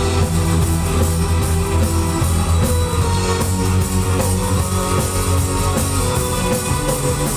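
Live rock band playing an instrumental passage with no vocals: electric guitar over drums and a sustained bass line.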